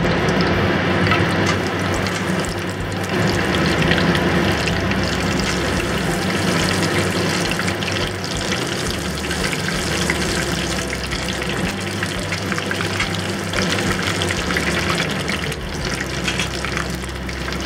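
Batter-coated jumbo prawns deep-frying in hot peanut oil in a cast-iron pot: a steady, dense sizzle and crackle of bubbling oil.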